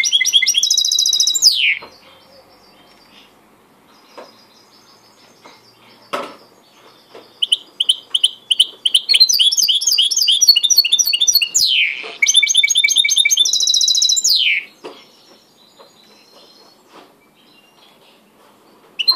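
A caged white mixto, a goldfinch–canary hybrid, singing fast high trills of rapidly repeated notes, each phrase ending in a quick falling glide. It sings briefly at the start, goes quiet for several seconds apart from a few faint clicks, then sings a longer run of about seven seconds. Another phrase begins right at the end.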